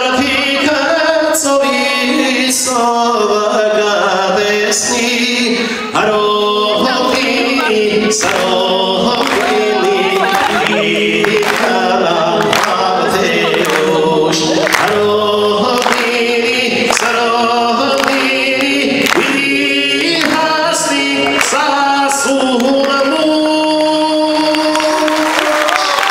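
Male vocalist singing a song into a handheld microphone, amplified through stage loudspeakers, over backing music with a steady beat.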